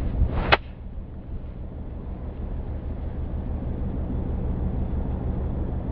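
A golf iron swung through and striking a ball off fairway turf: a short swish that ends in a sharp strike about half a second in. Wind rumbles on the microphone throughout.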